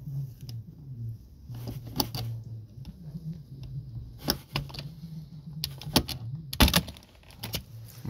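Small metal flathead screwdriver prying at a plastic trim cover around an electric car's charging socket: a series of sharp clicks and plastic snaps, the loudest about two-thirds of the way through, over a steady low hum.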